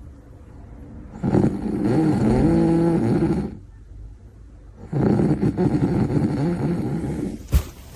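Loud snoring: two long snores about four seconds apart, each lasting about two seconds, the first turning into a steady pitched tone partway through. A short sharp knock near the end.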